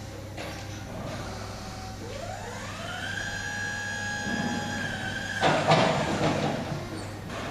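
Forklift truck's electric motor whining: it rises in pitch over about a second, then holds a steady note. It cuts off into a loud clatter about five and a half seconds in.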